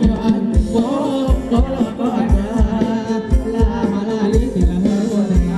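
Live Thai ramwong dance-band music: a singer over a quick, steady drum beat and a held low note, played loud through stage speakers.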